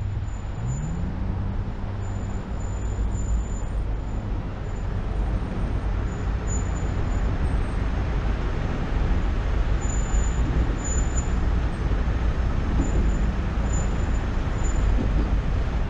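Car driving in city traffic: steady engine hum with road and wind noise. The engine note rises about a second in, then holds steady.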